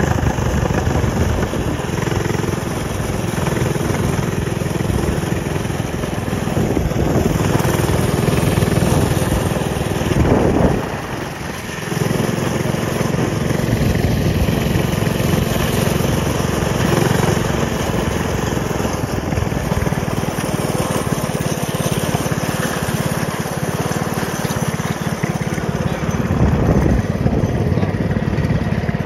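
Mini bike's small engine running under way as the bike is ridden, its note dropping off briefly about eleven seconds in before it picks up again.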